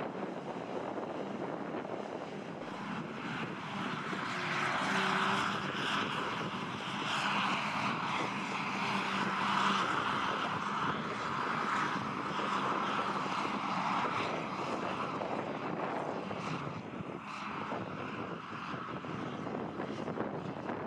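Claas Jaguar 870 self-propelled forage harvester working under load, chopping grass and blowing it into a trailer, with the hauling tractor running alongside: a steady heavy engine drone that grows a little louder about four seconds in and eases again after about ten seconds.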